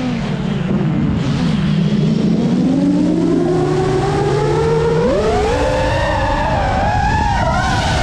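FPV racing drone's electric motors whining. The pitch sits low at first, climbs slowly, then jumps sharply higher about five seconds in as the throttle is pushed up, and wavers after that.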